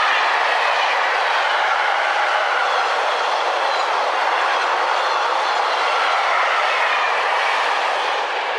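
Freight train wagons, tank wagons and car carriers, rolling past at speed: a steady, loud rush of steel wheels on rail.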